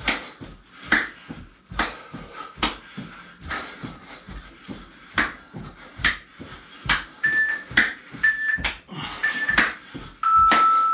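Seal jacks being done on the floor: a sharp slap or landing about once a second. Near the end an interval timer sounds three short high beeps about a second apart, then one longer, lower beep, marking the end of the work round.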